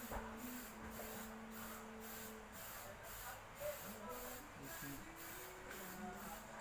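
Faint hiss of an aerosol spray-paint can spraying paint onto a board, over a low steady tone that stops about two and a half seconds in.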